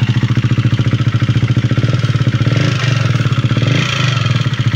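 KTM Duke 390's single-cylinder engine running with a loud ticking from the cylinder head, the engine speed rising briefly in the second half. The ticking is the sign of a worn intake camshaft lobe, which the mechanic puts down to overheating or an oil nozzle not spraying.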